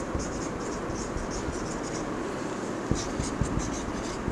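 Marker pen writing on a whiteboard: a run of short squeaky scratching strokes as a word is written out letter by letter, with a couple of soft knocks about three seconds in.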